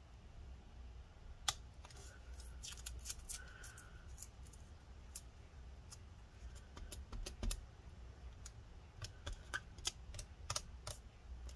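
Faint, irregular clicks and ticks as the battery adhesive strips of a MacBook Pro are slowly peeled and pried up from under the cells, with a few small squeaks.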